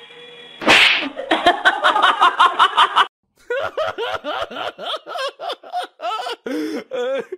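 A sudden loud hissing burst, then a quick run of short pitched pulses. After a brief break, a dog barks over and over in short, quick barks.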